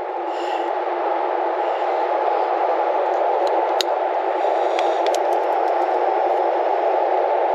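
Steady hiss of air escaping from a car tire's puncture hole once the object has been pulled out, with a few faint clicks of tools being handled.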